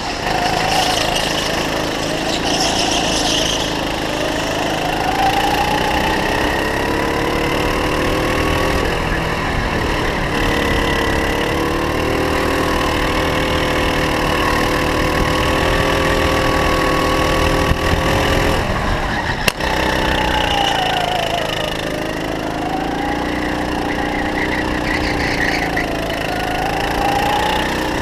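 Go-kart engine running under load through a lap, its pitch climbing as it accelerates, holding a high steady note for several seconds mid-way, dropping sharply, then dipping twice more and recovering through corners near the end.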